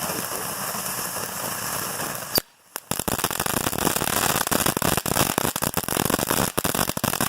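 Consumer firework fountain burning: a steady hiss of spraying sparks, a sharp pop about two and a half seconds in, a brief drop to near quiet, then dense rapid crackling from the crackling-flower effect. No whistle sounds.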